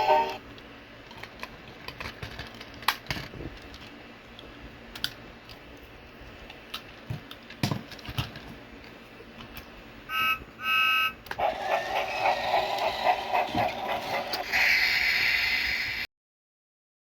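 Scattered small clicks and handling noise, then two short electronic beeps about ten seconds in. A few seconds of loud warbling electronic sound effect follow, from a remote-control toy train being tested, and cut off suddenly.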